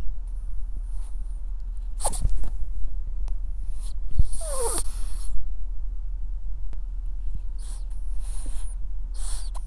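Ferret breathing noisily close to the microphone: short snuffling, snorting breaths every second or two, one with a squeaky snort about four and a half seconds in, over a steady low hum.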